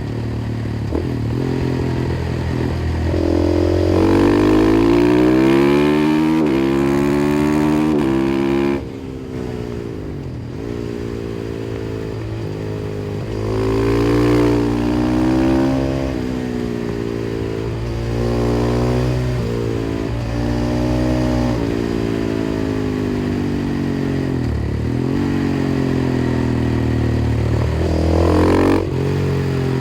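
KTM 500 EXC-F single-cylinder four-stroke engine with an FMF exhaust, ridden hard. The revs climb and drop repeatedly as it runs up through the gears, and the throttle snaps shut about nine seconds in before it pulls again.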